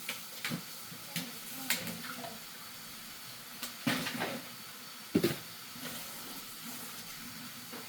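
Dishes and a bowl knocking and clattering at a kitchen sink over a steady hiss, as bok choy is washed. The sharpest knock comes about five seconds in.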